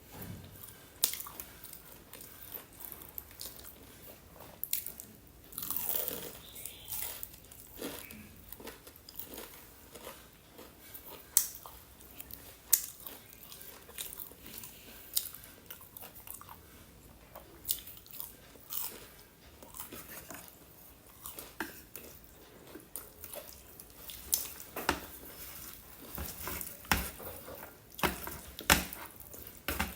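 Close-up eating sounds: a person biting and chewing crispy fried chicken, with irregular sharp crunches between softer chewing, the crunches coming more often near the end.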